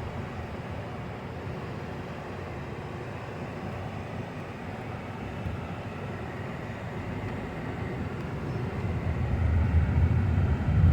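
Car driving along, heard from inside: steady road and engine noise, growing louder with a deeper rumble over the last couple of seconds.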